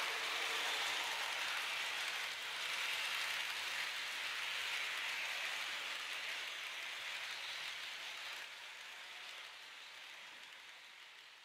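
H0 model passenger coaches rolling on floor-laid model track: a steady rattle of small metal wheels on the rails, fading away over the last few seconds as the train recedes.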